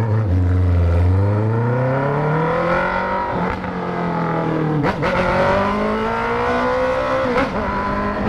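Honda CB650F inline-four with a full stainless Atalla exhaust accelerating hard and loud, its pitch climbing through each gear and dropping at upshifts a little over three, about five and about seven seconds in.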